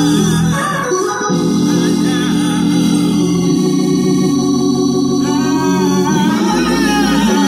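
Console organ playing sustained chords, with a man singing over it in two wavering, held phrases.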